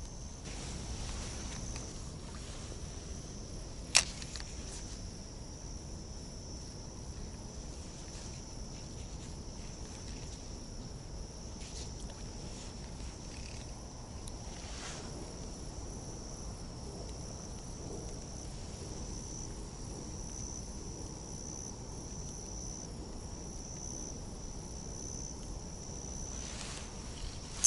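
Steady outdoor chorus of insects, a continuous high-pitched buzzing, over low background noise. One sharp click about four seconds in.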